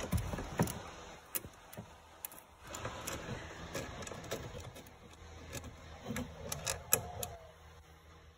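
Irregular clicks, taps and small metallic rattles of hand tools and parts being worked, fastening the amplifier's ground wire to a car body bolt.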